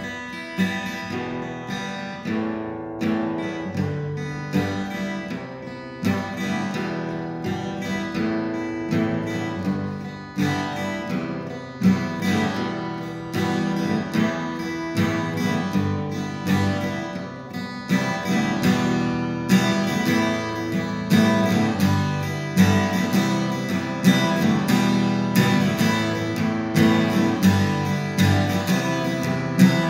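Acoustic guitar strummed and picked in a steady rhythm, an instrumental passage with no singing.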